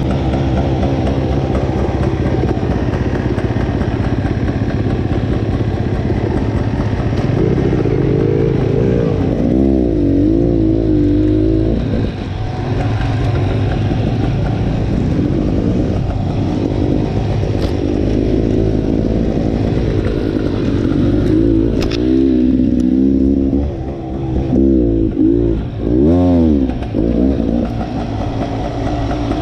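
Off-road dirt bike engine running as it is ridden along a trail, its revs rising and falling again and again as the throttle is worked on and off, with several quick blips in the last few seconds.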